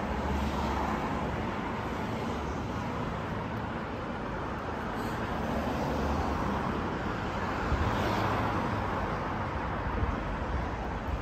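Steady road traffic noise: a continuous, even rumble of city vehicles with no distinct single events.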